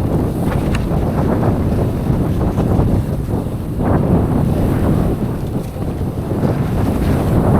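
Loud wind buffeting on a camera's microphone during a mountain-bike ride, with the rumble and rattle of the bike running over the trail mixed in.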